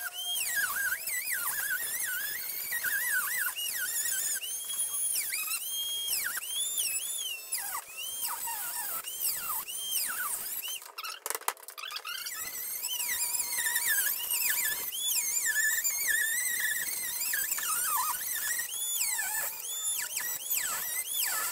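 Dremel rotary tool with a cutoff wheel cutting through a plastic grille, its high whine swooping up and down quickly as the wheel bites and frees in sped-up footage, with a brief break near the middle.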